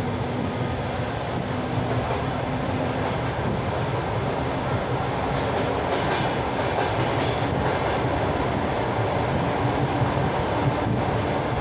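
KDE-16 railway crane rolling slowly along the track: a steady rumble of wheels on rails with a low engine hum.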